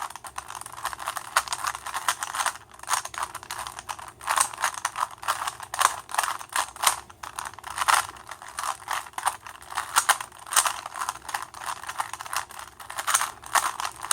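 Rapid, irregular clicking and clacking of a Rubik's 3x3 cube's plastic layers being turned quickly by hand, during the last-layer steps of a solve.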